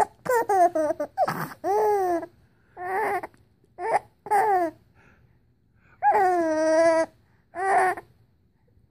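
4-month-old baby laughing with his fingers in his mouth: a run of short, high-pitched, breathy laughs with one longer drawn-out laugh about six seconds in.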